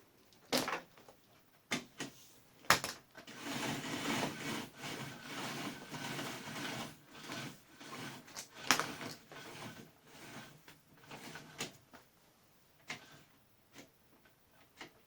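Handling noises: a few sharp knocks spread through, and a stretch of sliding and rubbing in the middle, like parts of a workbench or table being moved and set in place. No saw or router motor is running.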